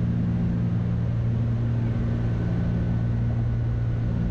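Cessna 310's twin piston engines and propellers running in the cockpit: a steady, even low drone.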